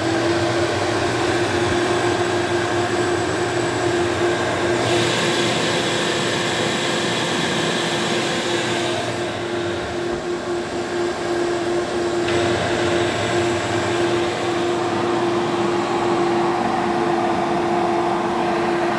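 Shop vac running steadily as a CNC dust extractor, a constant drone with a steady whine, housed in a vented box built to quiet it. A brighter air hiss joins for a few seconds near the middle.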